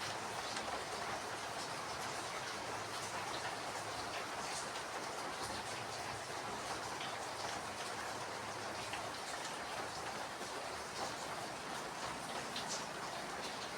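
Steady, even rushing noise with a few faint scattered ticks.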